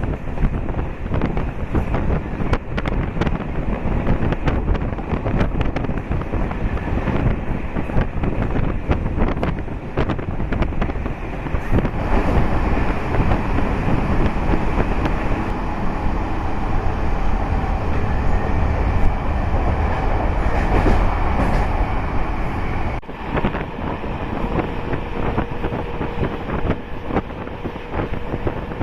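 MEMU electric multiple-unit train running on the track, heard from on board: a steady rush of rolling noise with many sharp knocks, and wind buffeting the microphone. About three-quarters of the way through the noise dips suddenly and a faint steady tone comes in.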